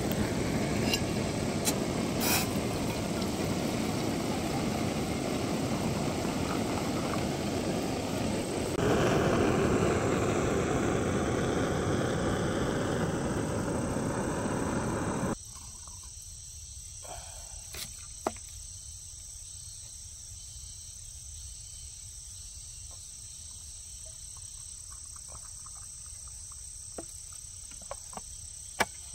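A steady rushing noise cuts off suddenly about halfway through, leaving insects chirping steadily in the open, with a few short clicks.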